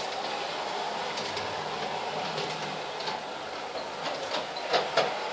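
LGB large-scale model train running along its track: a steady whirring running noise with light clicking from the wheels. Two sharp, louder clicks come near the end.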